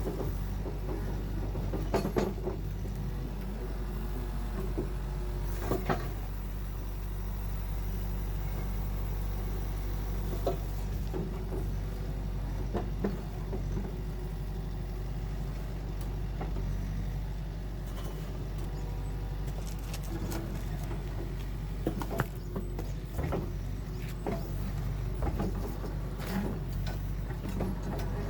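An engine running steadily throughout, with scattered sharp knocks and clanks over it.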